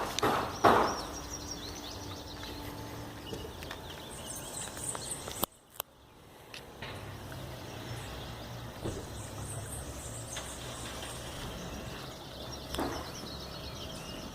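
A river running with a steady rush, with small birds chirping above it. There are a couple of sharp knocks in the first second, and the sound drops out abruptly for about half a second near the middle.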